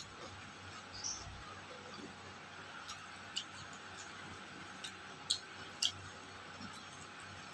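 A few sharp clicks and smacks of someone eating: mouth and lip sounds while chewing a meal of rice and fish, over a steady low hiss.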